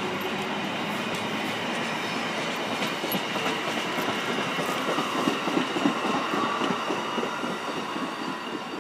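Amtrak Keystone passenger coaches passing close by: a steady rumble of steel wheels on the rails with rapid clicking as the trucks cross the rail joints. The sound eases a little near the end as the train moves off.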